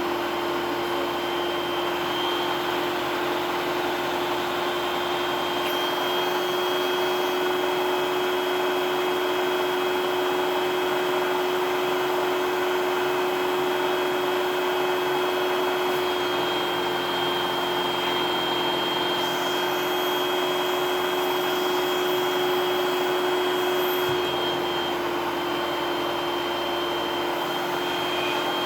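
Vacuum cleaner running steadily: a rushing airflow with a constant motor whine, which changes tone slightly near the end.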